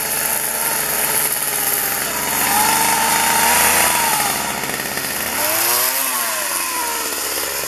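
Chainsaw running at high revs and cutting into an overhead branch. Its pitch rises and falls twice as it comes under load.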